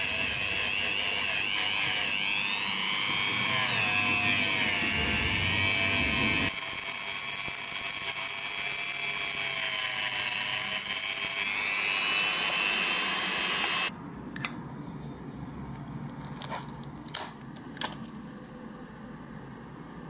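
Rotary tool with a brass wire wheel brush running at high speed, scrubbing corrosion off a die-cast alloy model base. Its whine wavers and shifts in pitch as the piece is pressed to the brush and eased off, then cuts off suddenly about two-thirds of the way through. A few light clicks follow.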